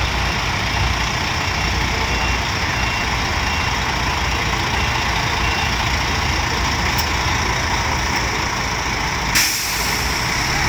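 Large coach's diesel engine running at low speed while it manoeuvres, with a faint short beep repeating through the first half. About nine seconds in, a sudden loud hiss of the air brakes.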